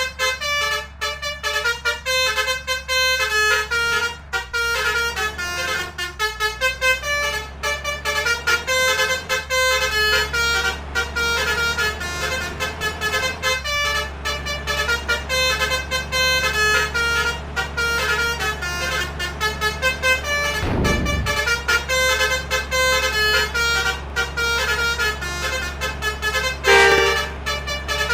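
Buses' basuri multi-tone musical horns playing 'telolet' tunes again and again: short notes stepping up and down, over a steady low hum. About 21 seconds in a low sound sweeps downward, and near the end comes a louder horn blast.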